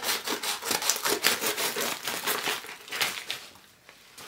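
A mail-order parcel of books being opened by hand: its packaging crinkles and crunches in quick irregular rustles, then dies down near the end.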